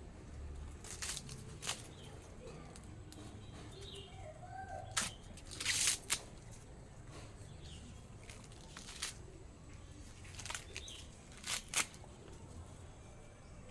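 Corn plants rustling and snapping in short, irregular bursts, the loudest about five to six seconds in, with a few faint bird chirps.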